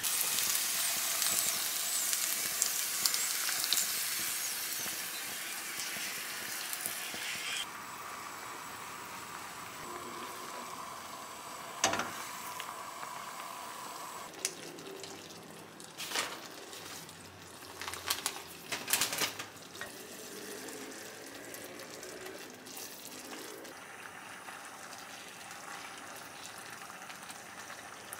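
Chicken and onion sizzling in a frying pan as cream is poured in. After about seven seconds the sizzle drops to a quieter bubbling of the cream sauce. A few knocks of a spatula against the pan come near the middle.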